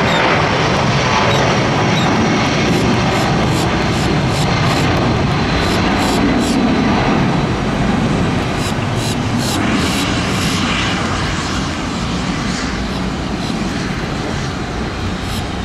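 Boeing 757 twin jet engines at takeoff power on the roll, through rotation and the initial climb. A steady loud rush that eases slightly after about ten seconds as the jet climbs away.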